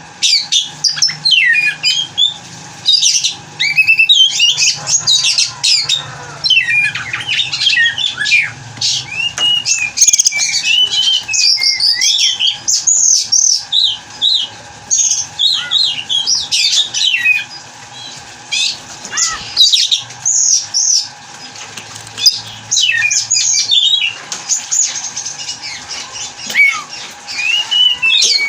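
Oriental magpie-robin singing a fast, varied song of sweet whistles and harsh chattering notes, almost without pause.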